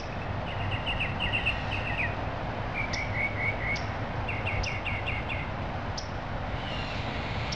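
A small songbird singing: three or four runs of quick, repeated chirps over a steady background hum of outdoor noise.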